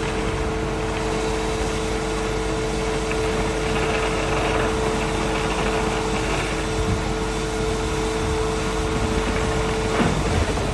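Concrete pump running steadily as concrete is pumped through the hose into insulated concrete formwork walls: a continuous mechanical hum with two steady tones, one of which drops out shortly before the end.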